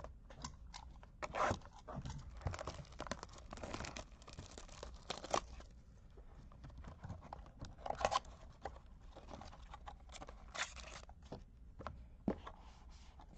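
Plastic wrapping of a trading card pack being torn and cut open and crinkled, with scattered clicks and rustles of handling.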